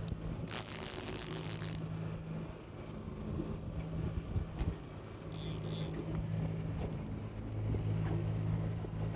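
Boat motor running steadily at trolling speed, a low even hum, with two short hissing bursts, about half a second in and again about five seconds in.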